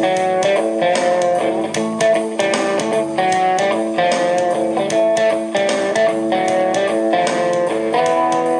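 Recorded electric-guitar music played from a phone through the freshly repaired Biamp 601E line mixer as a test signal, with plucked notes in a steady rhythm.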